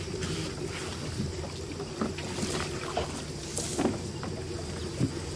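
Canoe paddle working the water, a few soft splashes and drips over a steady background of outdoor water and wind noise.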